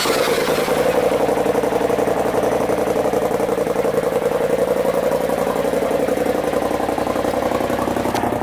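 A straight-piped 2018 Polaris RZR Turbo S side-by-side, with a turbocharged twin-cylinder engine, idling steadily. The exhaust note is heard close to the twin tailpipes, with a fast, even pulse.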